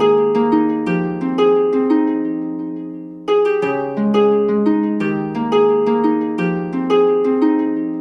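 Background music: a melody of plucked notes in a repeating rolling pattern, each note fading after it is struck. The notes die away about three seconds in, then the pattern starts again.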